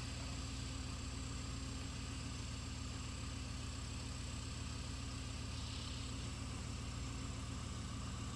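Steady idle of a 1983 Pontiac Trans Am's 305 small-block V8, heard from inside the cabin while stopped in traffic.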